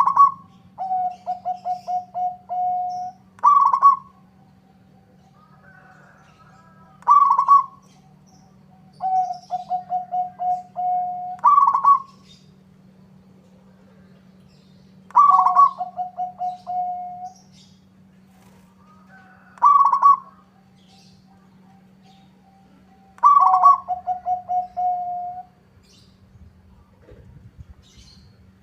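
Zebra dove (perkutut) cooing its song over and over: each phrase opens with a loud higher note, often followed by a quick run of short lower coos, repeating about every four seconds. A steady low hum runs underneath.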